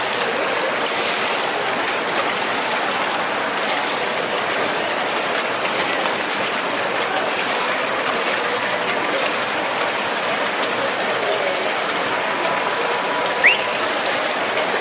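Steady rushing hiss of pool water churned by the swimmers, even throughout, with one short rising chirp near the end.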